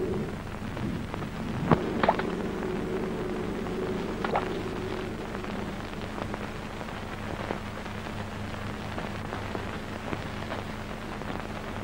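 Steady rain falling, an even hiss of noise with a few sharp ticks, over a low steady hum.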